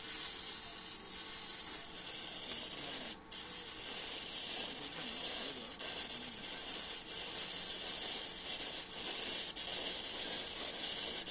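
Electric welding arc burning on a 6G pipe weld: a steady hiss that strikes up at the start, breaks off briefly about three seconds in, then carries on.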